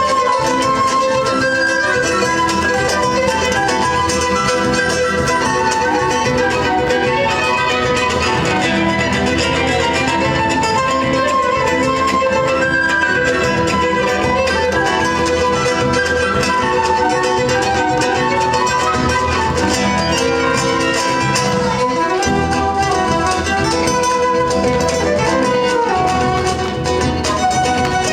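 Instrumental music with guitar and violin playing a melody.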